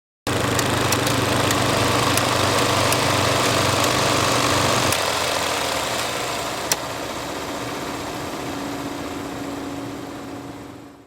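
Film projector running with a steady mechanical whirr and scattered sharp clicks. About five seconds in its low hum drops away, and the rest fades out gradually near the end.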